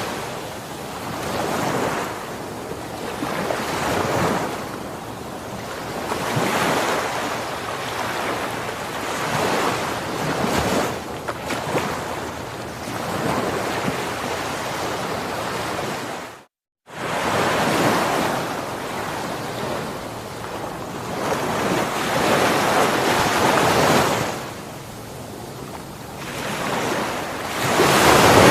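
Ocean waves washing onto a shore, swelling and falling back every few seconds. The sound cuts out completely for a split second about halfway through.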